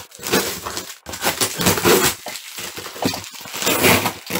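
Clear plastic packing tape crackling and tearing as it is cut with a box cutter and pulled off a cardboard box, with the cardboard being handled, in irregular bursts.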